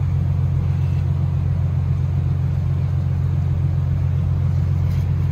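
Steady low mechanical hum from the onboard machinery of the moored Japan Coast Guard patrol vessel Fusō.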